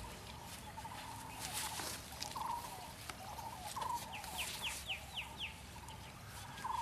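Birds calling: short buzzy calls repeated every second or two, and a quick run of about six falling chirps a little past the middle.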